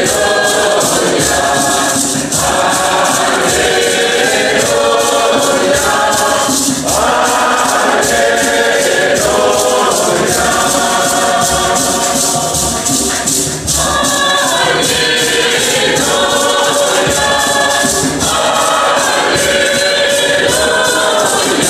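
A church choir singing, accompanied by a steady percussion beat.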